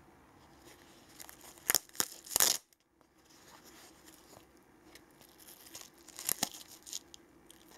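Hook-and-loop (Velcro) fastener on a nylon flashlight pouch's lid being pulled apart: three short rips about two seconds in and another couple near the end, with soft fabric handling between them.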